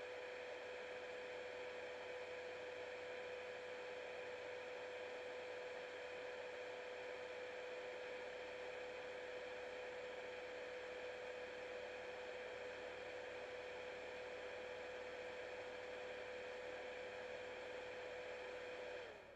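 A steady high hum-whine over hiss, like a small electric motor or fan running. It winds down in pitch and cuts off near the end.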